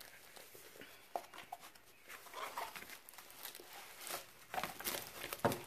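Paper wrapping rustling and crinkling in short irregular bursts as a rolled canvas is unwrapped and unrolled by hand, with a soft thump near the end.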